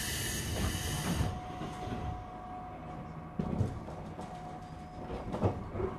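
Interior of a JR East 205 series electric train car (MoHa 205-380): a loud hiss of air fades out about a second in, then low rumbling with a few clunks about halfway and near the end.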